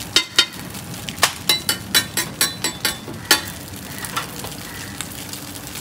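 Metal spatula clanking and scraping against a large flat iron pan of frying oyster omelette: two knocks, then a quick run of about nine more over two seconds, over a steady sizzle of frying.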